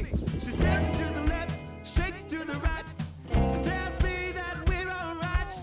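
Background pop song with a woman's singing voice over a steady beat.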